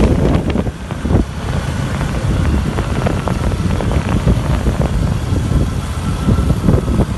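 Motorcycle engine running on the move, with wind buffeting the microphone.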